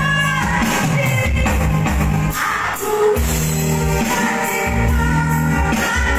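A woman singing live into a microphone in a high, piercing voice over band accompaniment with a steady bass line. Her notes are held and sustained.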